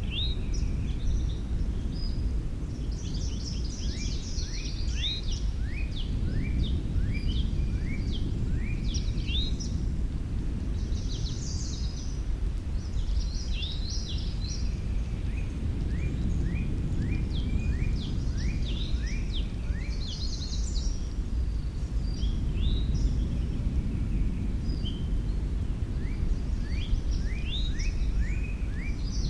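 Several songbirds singing and chirping in clusters of short, quick notes that mostly drop in pitch, over a steady low rumble.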